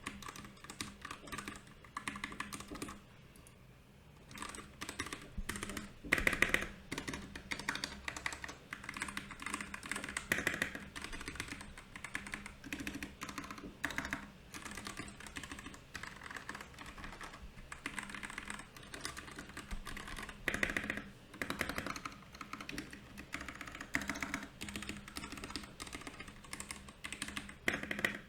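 Typing on a Royal Kludge RK68 mechanical keyboard with brown and milky yellow switches: a steady, uneven stream of key clacks, pausing briefly about three seconds in before picking up again with a few louder strokes.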